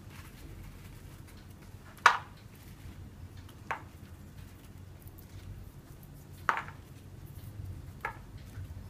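Hands sorting roasted walnut pieces on a paper towel at a kitchen counter: four short sharp clicks, the loudest about two seconds in, over a low room hum.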